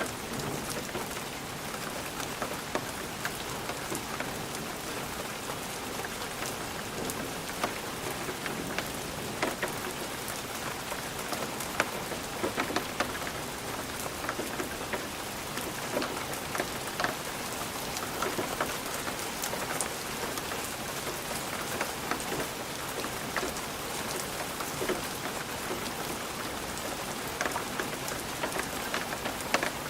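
Light rain pattering on a glass windowpane: a steady hiss of rain with many small, irregular taps of individual drops hitting the glass.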